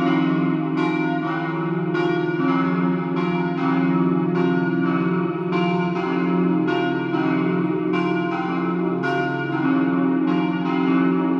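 Church bells swung in a festive 'doppio' peal, several bells striking one after another in an overlapping sequence about two to three strikes a second, their deep hum ringing on beneath the strikes.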